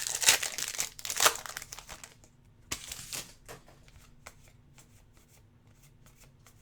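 Plastic wrapper of a Hoops basketball card pack crinkling and tearing as it is opened. The noise is loudest in the first two seconds, with another short burst about three seconds in, then a few faint clicks as the cards are handled.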